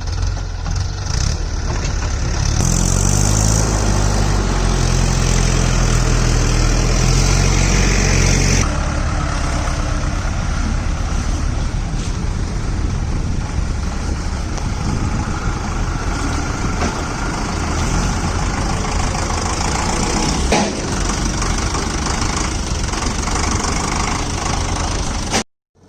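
Mahindra Arjun 555 DI tractor's diesel engine running under the load of a full trolley. It revs up and gets louder about three seconds in, holds there for several seconds, then drops back to a steadier running.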